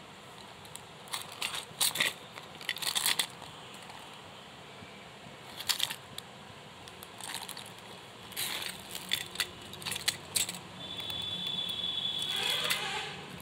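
Plastic pens and stationery items clicking and clattering against each other as they are handled and taken out of a pencil pouch, in several short bursts, with a longer scraping rustle near the end.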